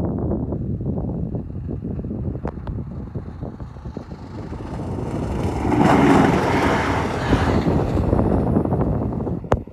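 Train passing at speed over a level crossing: wheels rumbling on the rails with rapid clacking. It swells to its loudest about six seconds in and drops away sharply near the end as the train clears.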